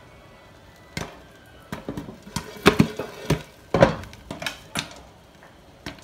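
Popcorn kernels popping dry, without oil, in a glass-lidded frying pan: scattered sharp pops, bunched together in the middle and thinning out toward the end. The popping is dying down, so the batch is nearly done.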